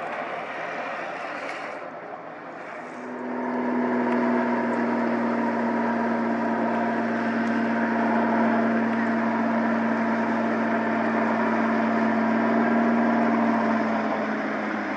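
Float-equipped Cessna 180J Skywagon's six-cylinder Continental engine and propeller running at high power with a loud, steady drone as the seaplane speeds across the water on its takeoff run. The drone comes in abruptly about three seconds in, after a fainter engine sound.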